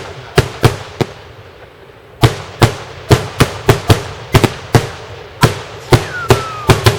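Daytime fireworks: a rapid, irregular series of loud, sharp bangs, two or three a second, with a pause of about a second after the first few. A short falling whistle sounds near the end.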